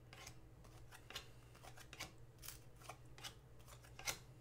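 Hockey trading cards being flipped one by one off a stack in the hand: faint quick slides and snaps of card stock, the loudest about four seconds in.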